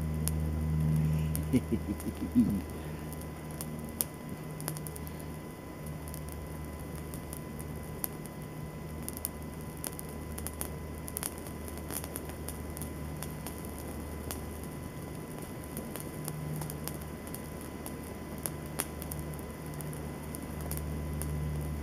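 Dry bracken tinder and small kindling catching fire from a char-cloth ember: irregular crackling and popping as the flames take hold, over a steady low hum.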